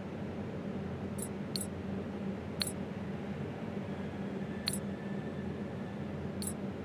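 A steady low hum with a faint hiss, broken by five short, sharp clicks at uneven intervals.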